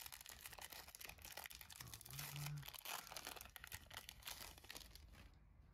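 Foil booster-pack wrapper crinkling and tearing as hands pull it open, a quiet, crackly rustle that dies down about five seconds in.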